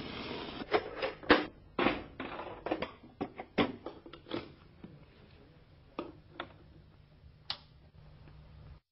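Handling sounds: a quick run of clicks and knocks as hands move a cardboard box, plug into a power strip and open a laptop. They are dense for about four seconds, then sparser, and the sound cuts off suddenly near the end.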